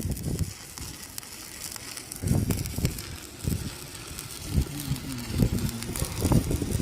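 Stick (SMAW) welding arc crackling and sputtering steadily, with irregular low rumbling gusts over it.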